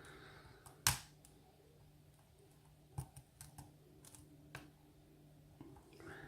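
Faint, scattered small metallic clicks of a lock pick working the pins of a kik cylinder lock under tension, the sharpest about a second in and a loose run of them from about three to five and a half seconds, over a faint steady low hum.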